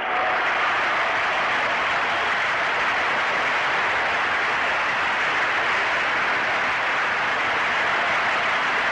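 Large arena crowd applauding a just-finished gymnastics floor routine; the applause breaks out suddenly and holds steady and loud.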